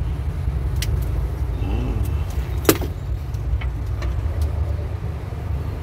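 A plastic relay and its connector being handled at a vehicle's fuse and relay box, giving a few sharp clicks, the loudest about two and a half seconds in, over a steady low rumble.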